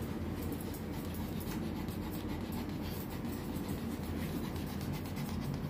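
Scratchy strokes of a metal grooming comb drawn through a Pomeranian's clipped coat, over a steady low hum. The sound cuts off abruptly near the end.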